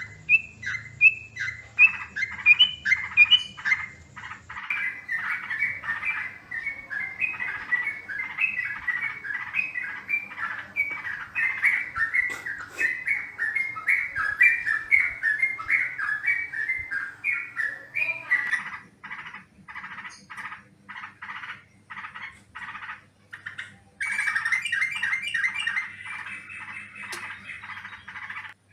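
Yellow-vented bulbul (trucukan) calling vigorously in a rapid run of short, bubbly chattering notes. The calls thin out to evenly spaced single notes about two-thirds of the way in, then a dense chattering run starts abruptly near the end. It is a lure call of the kind used to draw bulbuls in.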